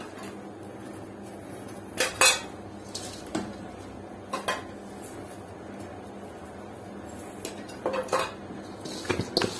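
Sharp metallic clinks and knocks against a stainless steel mixing bowl, two close together about two seconds in, a few scattered after, and a run of them near the end, over a steady electric hum.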